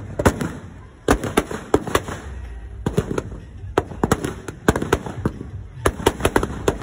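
Firecrackers packed inside a burning Ravana effigy going off in rapid, irregular bangs and cracks, in clusters about a second in, around three seconds in, and again from about five to six and a half seconds in.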